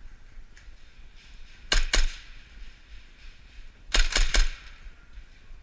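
Airsoft gun firing two short strings of rapid shots: three quick cracks, then about two seconds later four more.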